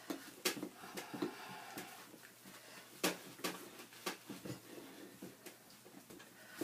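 Hands pressing and tucking wet wool felt over a wooden hat block wrapped in plastic: faint rustling and handling noise with scattered sharp clicks and crinkles from the plastic sheet.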